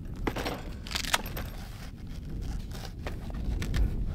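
Handling noise as a folding solar panel and its fabric case are moved and unfolded: short rustling, scraping bursts near the start and about a second in, over a steady low rumble.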